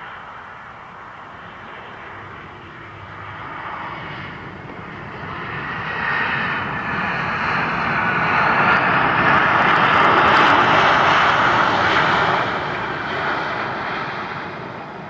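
Embraer E-Jet's twin GE CF34 turbofans running in reverse thrust just after touchdown: a rush with a high whine that builds over several seconds, peaks loud as the jet rolls past, then dies away as it slows.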